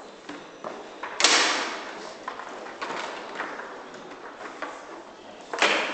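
Foosball played hard on an Ullrich-Sport table: the ball and figures clack on the rods and play surface, with a loud bang about a second in and another near the end. The bangs ring on in the large hall.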